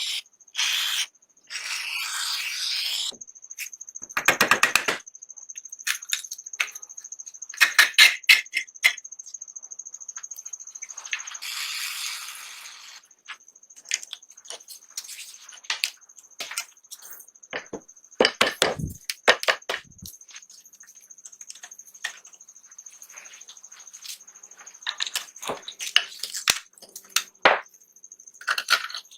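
Hand work on small metal parts: scattered sharp clicks and knocks, with a few short scraping or brushing bursts and a cluster of heavier knocks about two-thirds of the way through, over a faint steady high whine.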